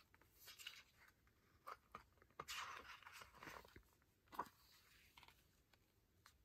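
Faint rustling of a glossy photobook's thick pages as a page is lifted and turned by hand, with a single sharp tap a little after halfway.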